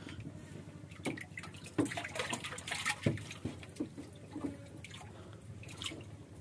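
Water splashing and sloshing in a shallow plastic tub as hands move live groupers into a plastic basket, with irregular short splashes and drips. The strongest splashes come about two and three seconds in.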